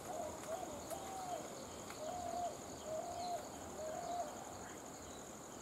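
Steady high-pitched insect drone of crickets or cicadas, with a bird giving a run of about six short, hoot-like notes that stop about four seconds in.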